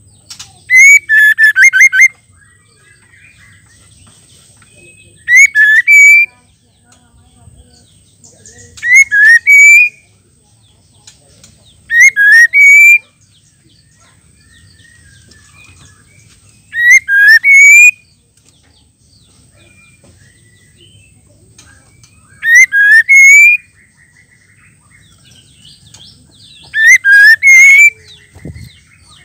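Female white-rumped shama calling in short bursts of quick, rising whistled notes: seven phrases about four to five seconds apart. This female call is what keepers play to stir male shamas into singing.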